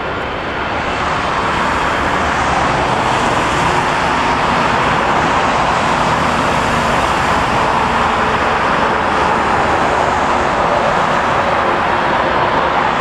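Steady roar of jet engine noise from aircraft on the airfield, mixed with road traffic. It builds over the first few seconds, then holds level.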